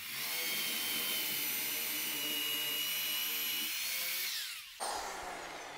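DeWalt corded drill with a long half-inch bit boring into the end of a wooden shelf through a doweling jig, the motor running steadily with a whine. Near the end the trigger is let go and the motor winds down with a falling pitch.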